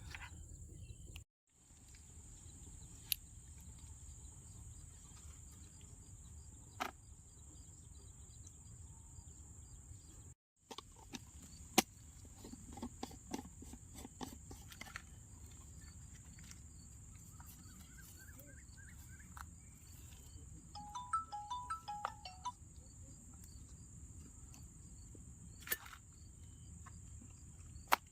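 Steady high-pitched chorus of insects such as crickets, with scattered light clicks and knocks. The sound drops out briefly twice, once near the start and once about a third of the way in.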